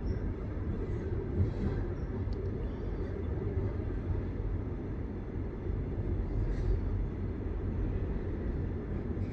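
Steady low rumble of a passenger train running along the rails, heard from inside the carriage.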